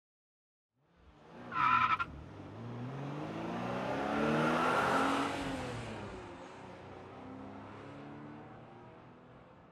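Race car sound: a brief tire squeal, then an engine going by, its pitch bending up and down as it swells to its loudest about halfway through and slowly fades away.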